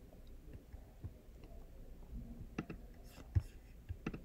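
Computer keyboard and mouse clicks at a desk: a handful of separate, faint clicks, mostly in the second half, the sharpest about three and a half seconds in.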